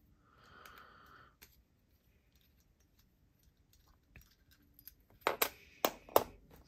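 Quiet, sharp metallic clicks and taps from small metal fidget-coin parts being handled. They come as a few scattered ticks, then a cluster of louder clicks in the second half.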